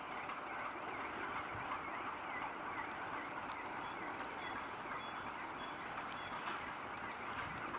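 Boxcars being shunted at walking pace: a steady rolling noise with a short squeak repeating about three times a second.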